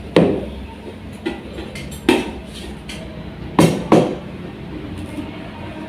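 Dishes and cutlery being set down: four sharp clinks and knocks of crockery, one just after the start, one about two seconds in, and a quick pair near the end.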